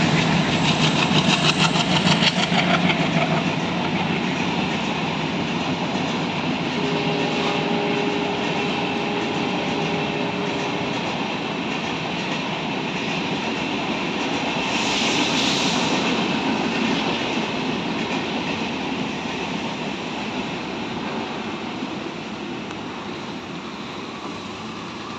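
Passenger train coaches rolling past at speed, wheels clattering rhythmically over the rail joints, then fading as the train moves away. A steady tone sounds for a few seconds near the middle.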